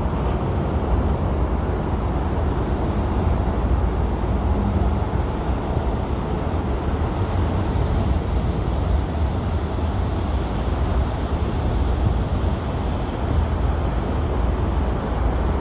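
Steady low rumble of a large ship's engines as it passes close by through the canal.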